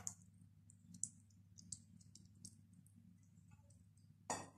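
Near silence with faint, scattered light clicks and ticks, and a short rustling noise near the end.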